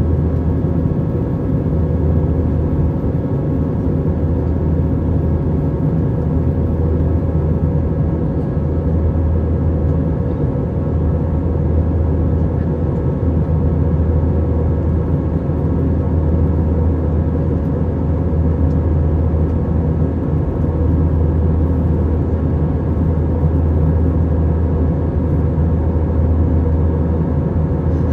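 Steady cabin noise inside an Airbus A321 airliner: a constant low rumble of the engines and airflow with a few steady hum tones, unchanging throughout.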